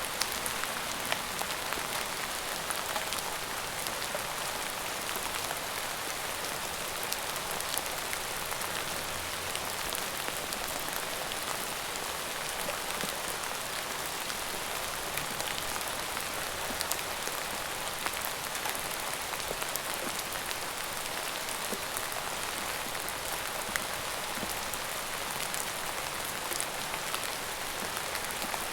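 Steady rain falling on a surface: a constant hiss with many small, sharp drop ticks scattered through it.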